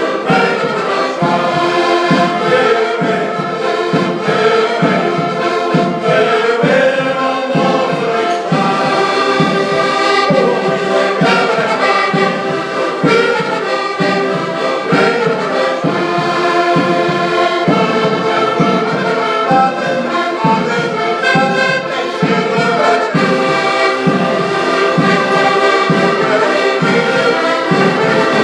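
Music with brass instruments and choir-like voices over a steady beat.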